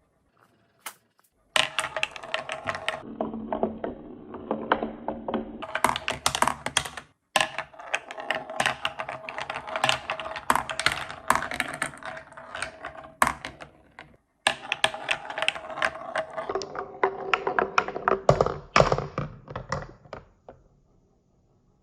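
Marbles rolling and clattering down a handmade wooden track: a dense, continuous stream of clicks and knocks with a rolling hum underneath. It stops dead and starts again abruptly a couple of times.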